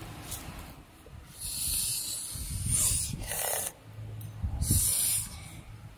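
Breathy hissing close to the microphone in several separate bursts of about a second each, like a child hissing or blowing out breath.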